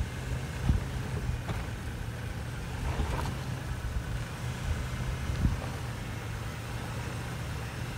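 Fourth-generation Toyota 4Runner's V8 engine running steadily at low revs as the SUV crawls over rocks, with a few low thumps.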